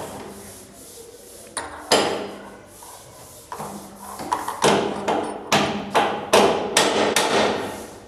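Sharp knocks as a handle lock is set into a wooden door: one about two seconds in, then a steady run of about seven, roughly two a second, each with a short ring.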